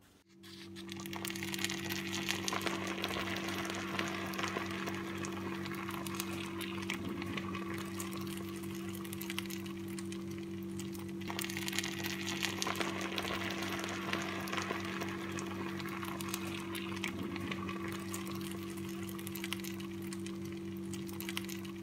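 Sugar syrup poured over hot baked baklava rolls, the filo pastry crackling and hissing as it soaks up the syrup, over a steady low hum.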